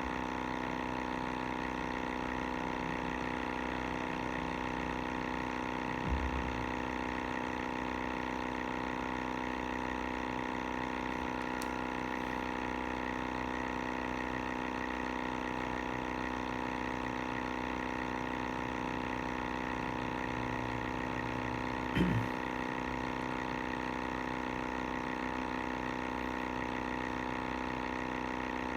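Sibata air sampler's pump motor running steadily with an even, constant hum. Two brief knocks come about six seconds in and again about twenty-two seconds in.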